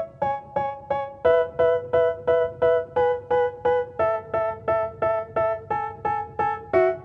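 Background music: a piano or electric-piano chord struck over and over at an even pulse, about three times a second, moving to a new chord every few seconds. This is the intro of a rap track before the vocals come in.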